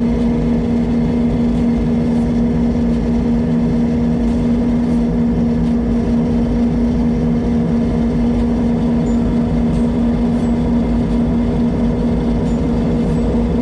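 Heavy harvest machinery, an engine running at a steady speed with a constant droning hum over a low rumble.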